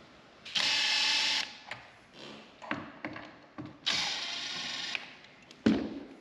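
Bosch Professional cordless drill/driver running in two short bursts of about a second each, turning screws at a door hinge. A sharp knock comes near the end.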